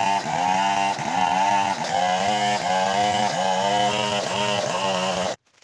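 Stihl chainsaw ripping lengthwise along a log, running at high revs under cutting load. Its pitch dips and recovers about twice a second as the chain bites into the wood. It cuts off suddenly near the end.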